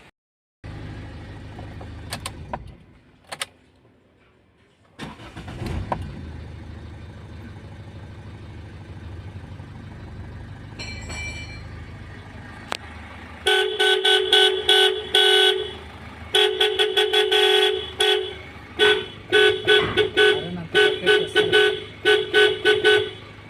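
Toyota Etios car horn being sounded: one long honk about halfway through, then a quick run of short toots and honks. The horn is working again after the broken clock spring under the steering-wheel airbag was replaced. A low steady hum lies underneath.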